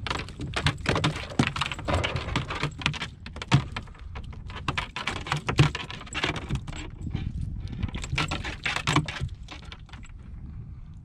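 Close clicking, tapping and rustling of hands working a Panther Martin spinner's treble hook out of a trout's mouth, with a couple of sharper knocks about a third and halfway through, then quieter handling.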